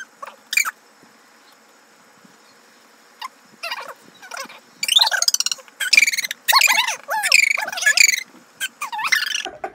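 High-pitched, squealing giggles: a burst of laughter that starts about five seconds in and runs for about three seconds, after a couple of short squeaks.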